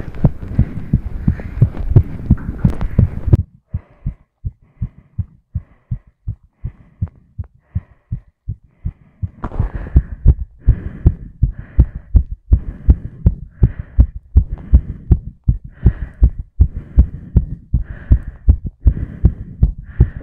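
A fast human heartbeat picked up by a phone lying on the chest: rapid, even low thumps, about two a second. A rustling hiss lies over the beats for the first few seconds and again from about halfway on.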